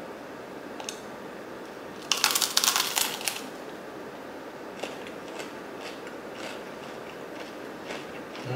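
A bite into a slice of crusty bread, crunching in a quick crackly burst about two seconds in, followed by a few faint chewing clicks.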